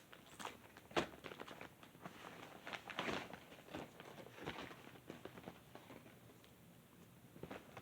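Faint rustling and scattered small clicks of a mailed package being cut and pulled open by hand.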